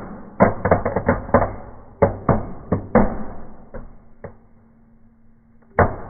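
Fire in a fireplace crackling and popping. The pops come quickly at first and thin out as the flames die down to glowing embers, with one louder pop near the end.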